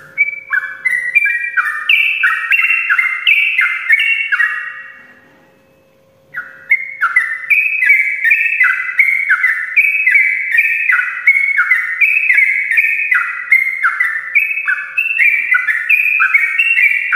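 Yellow-vented bulbul singing a long, rapid run of bright notes, each dropping in pitch, about four a second. It breaks off for nearly two seconds around a third of the way in, then starts again. A faint steady hum runs beneath.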